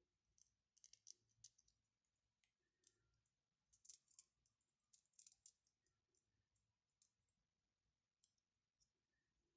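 Small hard plastic clicks and rattles from 3D-printed mechanical counter parts being handled and fitted together, with two short clusters of sharper clicking a little before halfway.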